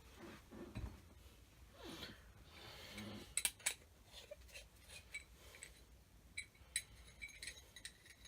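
Scattered light clicks and metallic clinks from a screwdriver and small metal ceiling-fan parts being handled, a few of them ringing briefly, with a quick cluster of clinks near the end.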